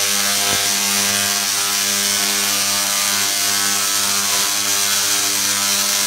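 Large Tesla coil firing, its sparks arcing into the air with a loud, steady electric buzz.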